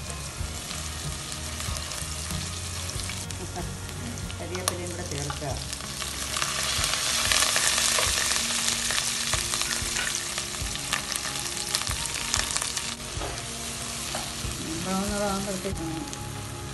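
Chopped onion, garlic and ginger sizzling in hot oil in a non-stick pot as green chillies and curry leaves are stirred in with a wooden spoon, with light knocks of the spoon. The sizzle swells louder from about six seconds in and eases off again a few seconds later.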